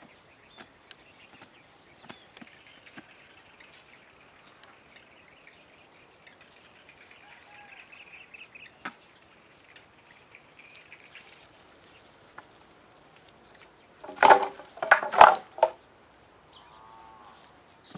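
Bamboo sticks jabbing into soil with faint scattered knocks, then, about fourteen seconds in, a loud clatter of bamboo poles knocking together as they are set down on the ground.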